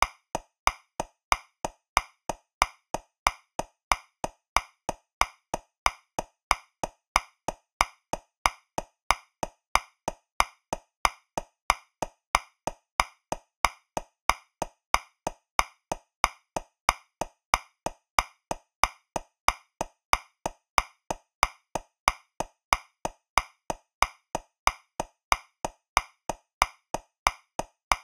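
Metronome clicking at 185 beats per minute, about three sharp clicks a second, in 2/4 with the first of every two beats accented.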